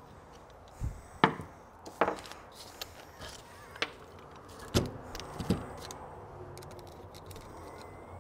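Light metallic clicks and knocks of hand tools and carburetor parts being handled on a workbench while a Rochester Quadrajet carburetor is taken apart: about seven separate clinks spread over the first five and a half seconds.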